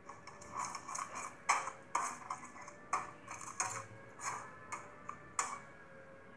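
Metal spatula scraping and clinking against a black kadai as a thick masala paste is stirred, in short irregular strokes about two or three a second.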